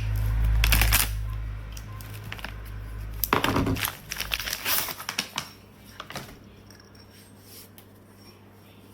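Handling noises from a boxed combination sharpening stone being picked up and set down: a low rumble for the first few seconds, then scattered clicks and knocks that thin out in the second half.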